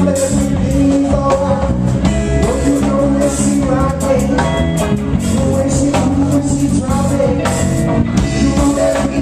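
Live reggae band playing with a male lead singer over guitar, bass and a Yamaha Rock Tour drum kit.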